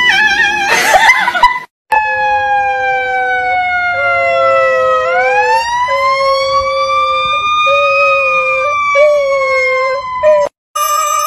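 A long siren-like wail: one pitched tone that slowly falls, sweeps up, then eases down again over about eight seconds, with a steadier lower tone beneath it that breaks off several times. Before it comes a short wavering animal call.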